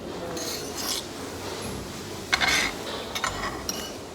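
Cutlery scraping and clinking against a plate while eating, with a louder half-second scrape about two and a half seconds in and a few light clicks after it.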